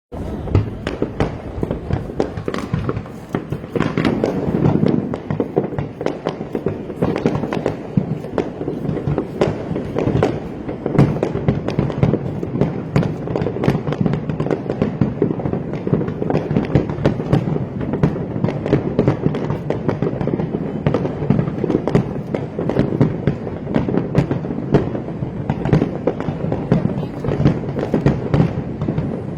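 Fireworks display going off in a dense, continuous barrage of rapid pops and bangs, with no break.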